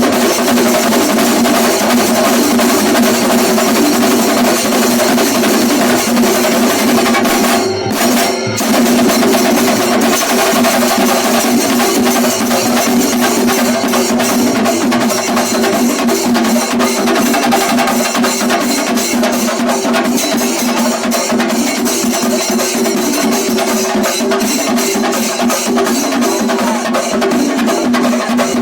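Singari melam: a group of chenda drums beating fast and loud, with elathalam cymbals, breaking off briefly about eight seconds in before carrying straight on.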